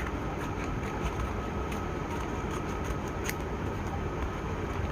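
A cable's retail packet being opened by hand: scattered short crinkles and clicks, the sharpest a little past three seconds in, over a steady low rumble.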